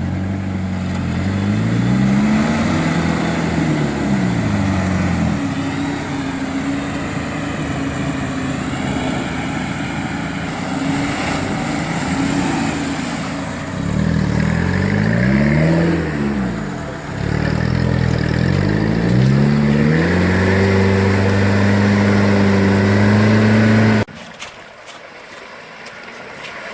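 Off-road vehicle engine revving up and falling back several times under load, then the sound cuts off abruptly near the end.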